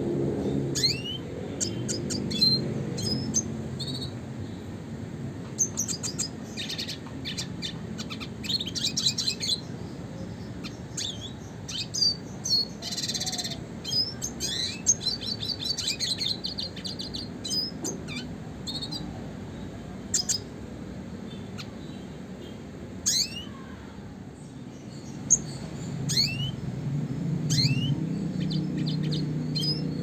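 Male red siskin singing in scattered bursts: quick rising chirps and fast twittering trills, with short pauses between phrases.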